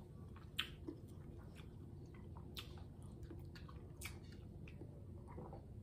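A person chewing king crab meat close to the microphone: soft wet mouth clicks and smacks, the sharpest about half a second in, with others near two and a half and four seconds.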